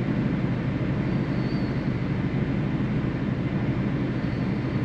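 Steady low drone of a truck's engine and running gear heard from inside the cab.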